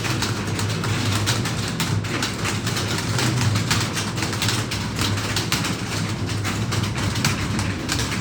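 Many computer keyboards clattering at once: rapid, overlapping keystrokes from a room full of typists, over a steady low hum.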